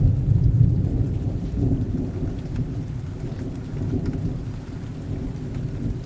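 Rain sound effect: steady rain with a low rumble of thunder, loudest in the first second and slowly easing off.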